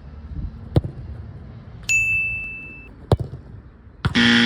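Two sharp thuds, a bright metallic ding about two seconds in that rings out and fades over about a second, then a loud, flat buzzer tone starting near the end.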